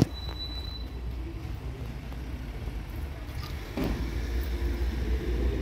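Air-cooled VW Beetle flat-four engine idling with a steady low exhaust rumble, growing louder about four seconds in.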